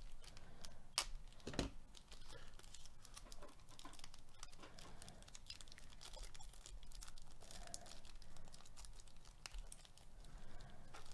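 A Panini Chronicles baseball card pack's wrapper being torn open and crinkled by hand, with a couple of sharper clicks about a second in.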